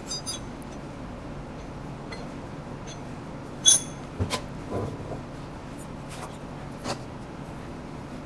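Scattered light metallic clinks and taps from handling metal parts and tools, the loudest a short ringing clink a little under four seconds in, over a steady low shop hum.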